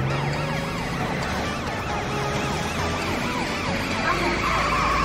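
Cartoon ambulance siren wailing in fast, repeating rise-and-fall sweeps over a low hum, with a steady higher tone joining near the end.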